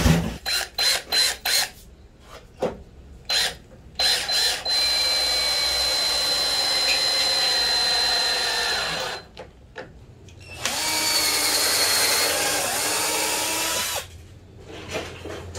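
Cordless drill working into the pine posts of a bunk-bed frame: a few short trigger pulls, then two longer runs of several seconds each with a steady high whine, and more short pulls near the end.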